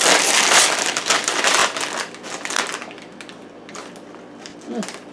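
A crinkly bag of potato chips being pulled open and handled. Loud crinkling runs for about the first two seconds, then fades to lighter rustling and a few small crackles.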